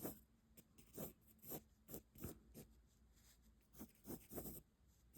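Pencil strokes scratching on paper during drawing: a dozen or so short, irregular, faint strokes.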